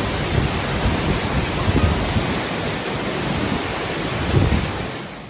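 Steady rushing roar of a waterfall dropping into a gorge, with a few low rumbling gusts of wind on the microphone; it fades out near the end.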